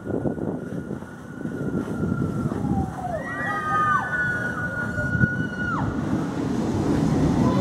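Mack Rides steel roller coaster train running along the track, with riders screaming. Several long held screams rise and fall together in the middle, then break off.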